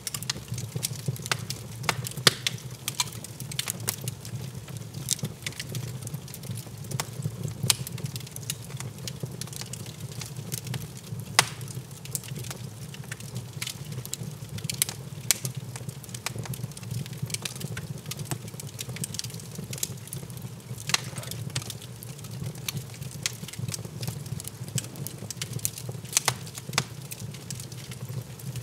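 Wood log fire crackling in an open fireplace, with irregular sharp pops and snaps over a steady low hum.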